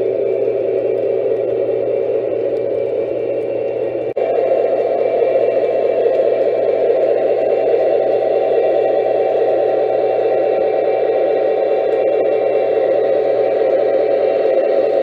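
Lionel O-gauge model train running on the layout: a steady rolling rumble of wheels on track with a low hum under it. The sound dips briefly about four seconds in and comes back a little louder.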